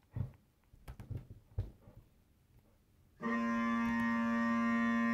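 A few scattered soft thumps, then bagpipes start suddenly about three seconds in, the drones sounding a steady held tone with many overtones.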